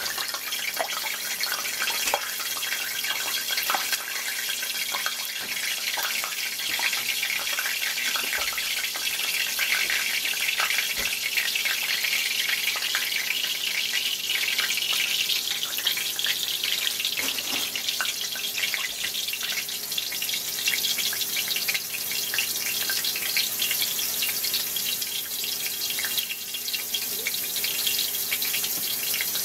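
Flour-dredged pork chops frying in hot grease: a steady sizzle with scattered crackling pops.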